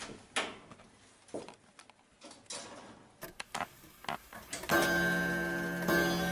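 A few scattered clicks and knocks, then a clock ticking and chiming with ringing strokes a little over a second apart, starting near the end. It works as a clock sound effect marking the cake's baking time.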